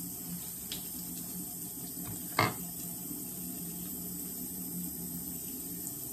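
Steady hum and hiss of a small bathroom's background noise, with one sharp click about two and a half seconds in and a fainter click near the start, as a toothbrush and toothpaste tube are handled.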